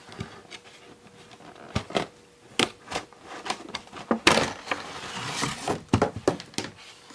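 Clear plastic window and cardboard of a doll box being handled and opened: crinkling with scattered clicks and crackles, the sharpest crackle about four seconds in.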